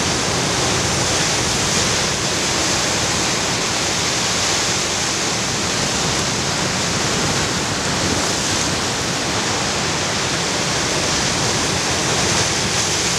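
Sea surf breaking over a rocky shore and pouring back between the rocks: a loud, steady rush of churning water.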